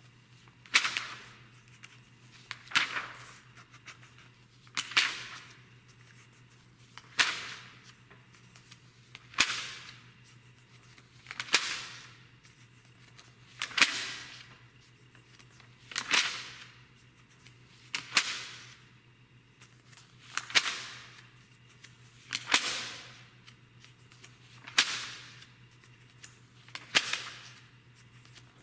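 Magazine pages being turned by hand, one brisk swish of paper about every two seconds, at a steady even pace.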